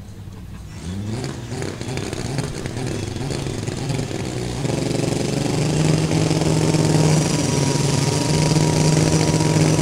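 VW Gol drag car launching and accelerating hard down the strip: the engine note climbs again and again as it shifts up through the gears, then holds a steady high pitch from about halfway, growing louder.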